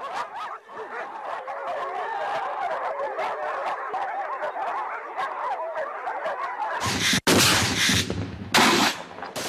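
A dense clamour of many overlapping high calls, then about seven seconds in a loud burst of machine-gun fire lasting about two seconds, broken by a brief gap.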